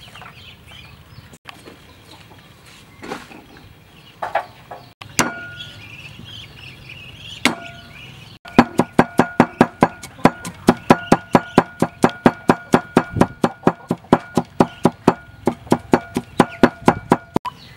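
Cleaver chopping garlic on a wooden chopping board. A few scattered knife strikes come first, then from about halfway in a fast, even run of loud chops, about four or five a second, each with a short metallic ring from the blade.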